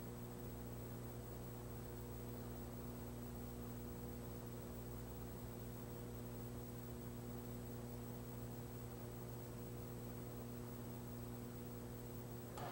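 Steady low electrical mains hum with faint hiss, with a thin high whine held steady above it.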